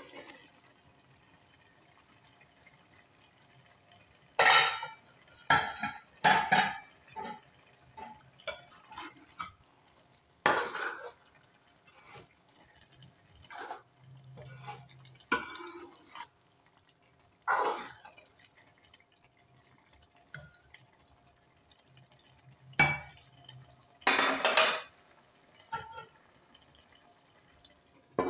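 A metal spoon stirring and scraping minced meat and gourd in a metal pot: irregular scrapes and clanks against the pot's sides and bottom. At the very end the metal lid clanks back onto the pot.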